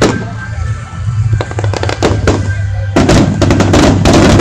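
Aerial fireworks bursting: a few separate bangs, then from about three seconds in a dense, rapid crackling barrage. Music plays underneath.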